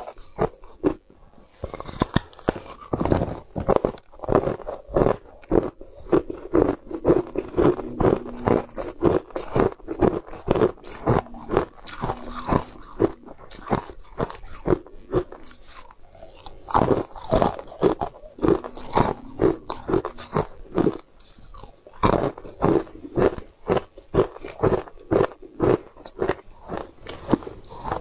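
A person biting and crunching ice close to the microphone: a fast run of sharp cracks and chewing crunches, with a brief lull about halfway through.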